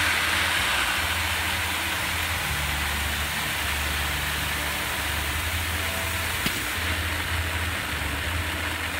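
Rice pouring in a steady stream from a batch weigher's discharge hopper into a clamped rice bag, a continuous loud hiss of falling grain.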